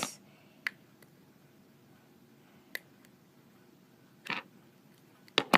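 A few sparse, short clicks and taps of plastic Play-Doh tools being handled while Play-Doh is cut into fries, with quiet room tone between them.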